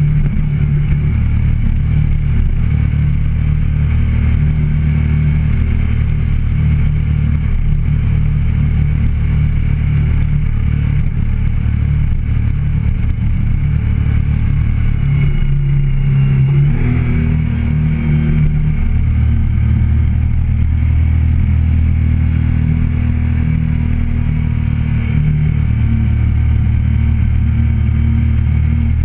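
Motorcycle engine running at a steady road speed, heard from a camera mounted on the bike. About halfway through, the engine note shifts and settles at a new steady pitch.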